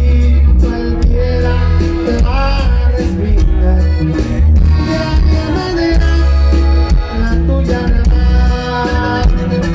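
Norteño band playing live through a stage PA: button accordion over acoustic guitar, drums and a heavy bass, in an instrumental passage without singing.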